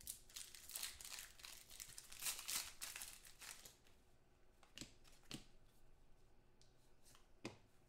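Faint rustling of football trading cards being handled and sorted through by hand, followed by three light clicks in the second half.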